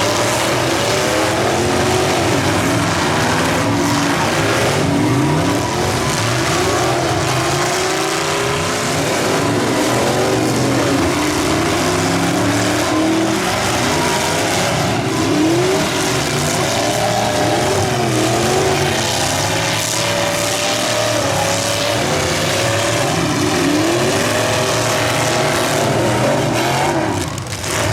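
Several demolition derby cars' engines revving hard at the same time, their pitches climbing and falling over one another.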